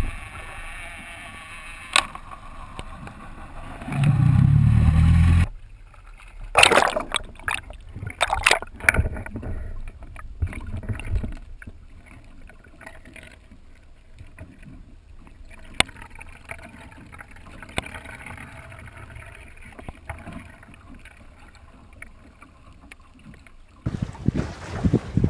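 Muffled sound of a camera held underwater: a loud low rumble of moving water, then sharp clicks and knocks, then a long quiet stretch with occasional clicks. Near the end it cuts to wind and water noise on the moving boat.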